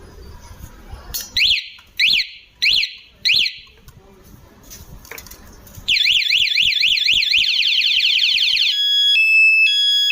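Bike alarm siren cycling through its tones: four short sweeping chirps, then after a pause a rapid warbling wail that quickens, switching near the end to a high-low two-tone beep.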